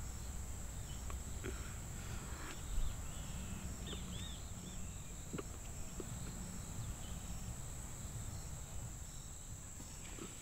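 Open-field ambience: a steady high insect drone with an evenly repeating chirp, a few short chirps about four seconds in, and a soft low thump near three seconds.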